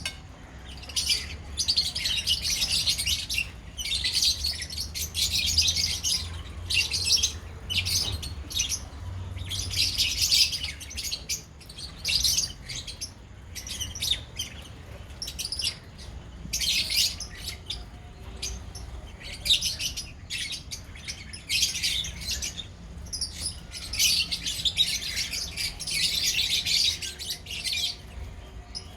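A colony of lovebirds chirping and chattering, many high-pitched calls overlapping in bursts, over a faint low hum.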